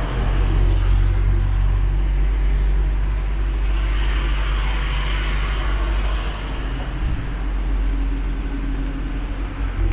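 A vehicle's engine running with a steady low rumble, with a swell of louder rushing noise for a couple of seconds in the middle.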